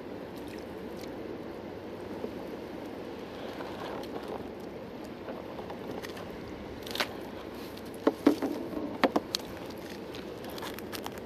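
Steady wash of water and wind around a kayak, with a cluster of sharp knocks and taps about seven to nine seconds in as a small yakka on a sabiki rig is lifted aboard.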